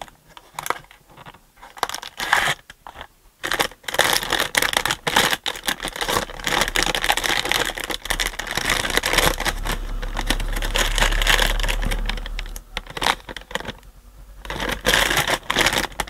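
Handling noises as equipment is moved about on a workbench: scattered knocks at first, then dense rustling and clatter from about four seconds in. A low steady hum joins about six seconds in.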